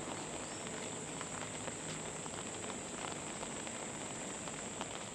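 Light monsoon rain pattering in scattered drops, with a steady high-pitched insect drone.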